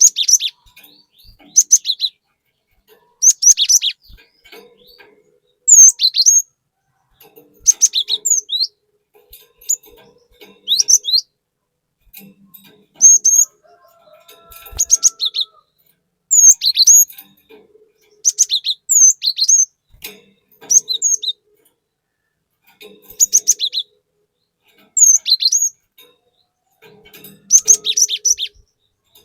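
Cinereous tit (gelatik batu) singing: short bursts of sharp, high chirps and quick whistled slurs, repeated every second or two with brief pauses between.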